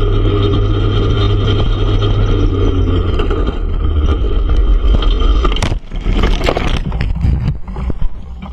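ATV engine running steadily at speed, then a crash about two thirds of the way in: a sharp knock followed by scraping and clattering as the machine runs off the track into trees and brush. The engine sound dies away near the end.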